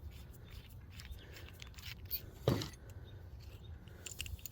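Faint clicks and light rattling of small metal hand tools being handled and turned over, with one brief louder low knock about two and a half seconds in.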